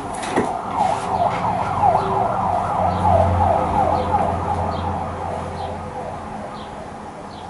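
Fire engine siren in a fast up-and-down yelp, several sweeps a second, growing louder toward the middle and fading as the truck passes. There is a low rumble underneath in the middle and a sharp click at the very start.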